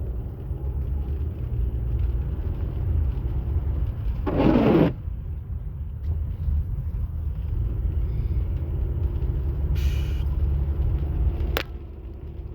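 Low, steady rumble of a car's engine and tyres heard from inside the cabin while driving in the rain. A louder burst of noise comes about four seconds in, a short hiss just before ten seconds, and a sharp click near the end.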